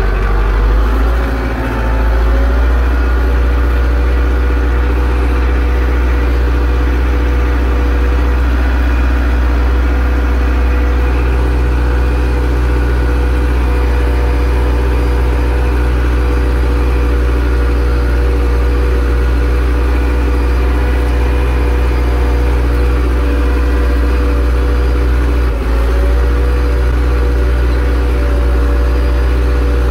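Zetor 6245 tractor's four-cylinder diesel engine running steadily under load while pulling a plough. The engine note sags briefly about a second in and again for a moment about 25 seconds in, then recovers.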